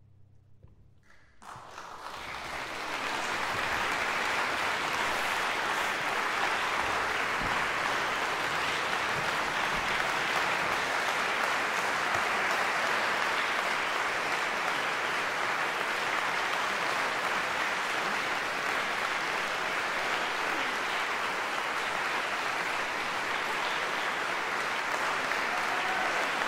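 The ensemble's last held note dies away, then an audience breaks into applause about a second and a half in. The applause builds within a couple of seconds to steady, sustained clapping.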